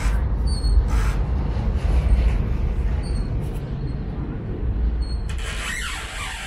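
Cabin noise of a Sheffield Supertram tram running along the track: a steady deep rumble from the wheels and running gear that gradually eases off. About five seconds in, a hiss comes in over the rumble.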